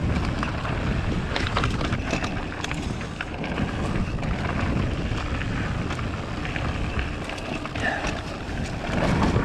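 Wind buffeting a GoPro microphone as a mountain bike rolls fast down a dry, dusty dirt trail, with tyre rumble and scattered knocks and rattles from the bike over bumps.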